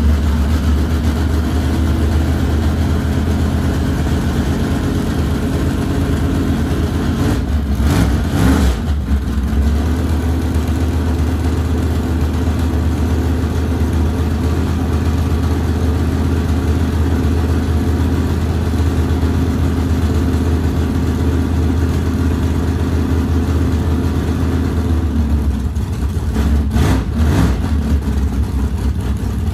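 Small-block Chevy V8 of an 1987 GMC Jimmy idling steadily, revved briefly about eight seconds in and again near the end.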